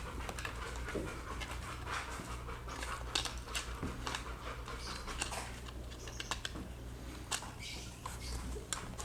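Small plastic clicks and taps as the parts of an earphone's in-line control housing are handled and fitted back together, over a steady low hum.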